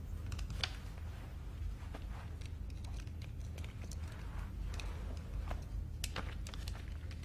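Low steady hum of a quiet enclosed room, with scattered faint clicks and rustles of people shifting and handling small objects.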